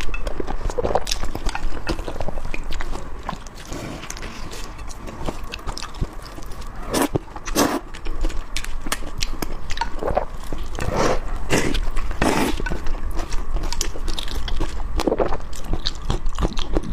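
Close eating sounds: a person chewing and biting food, with several louder short bursts in the second half.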